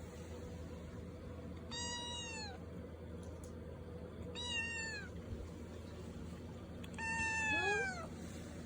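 Scottish Fold kitten meowing three times, a few seconds apart; each meow drops in pitch at the end, and the last is the longest and loudest.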